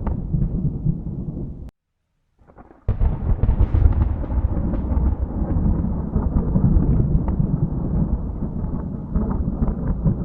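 Thunder rumbling deep and loud, cutting off abruptly less than two seconds in. After about a second of near silence, a new peal cracks in sharply and rolls on with crackling rumbles.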